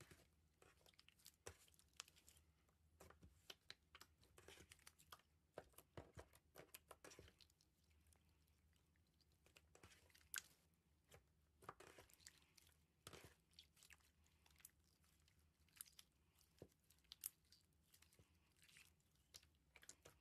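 Thick slime being squeezed and kneaded by hand, giving off faint, irregular sticky pops and crackles, some in quick clusters and a few louder snaps, with a couple of short quieter pauses.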